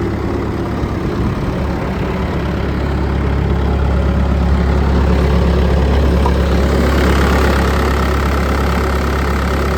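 Bobcat S160 skid steer's diesel engine running steadily with a deep drone. It grows somewhat louder a few seconds in and gains more high-pitched hiss for the last few seconds.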